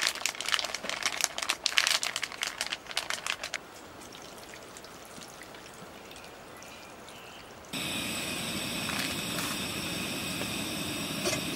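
Plastic bag crinkling as rice cakes are shaken out into a stainless steel mess tin, with small clicks as they land, then a faint trickle of water poured from a plastic bottle. About eight seconds in, the sound cuts to a steady rushing noise with faint high steady tones.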